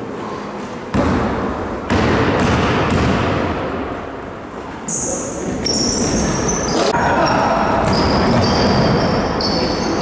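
Basketball game on an indoor hardwood-style court: the ball bouncing with sharp knocks about a second and two seconds in, then, from about halfway, many short high squeaks of sneakers on the floor as players move, with players' voices around.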